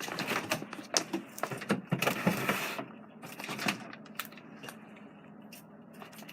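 Fluffy slime being squished and kneaded by hand: a run of small sticky clicks and crackles, busiest in the first three seconds and sparser after that.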